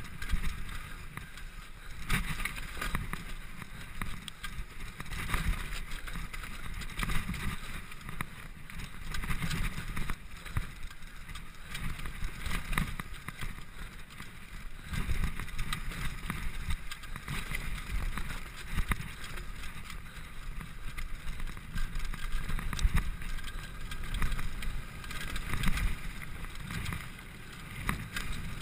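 Mountain bike descending fast on a dirt trail: tyres rolling over dirt and roots, with the bike rattling and clattering irregularly over every bump and wind rushing across the microphone.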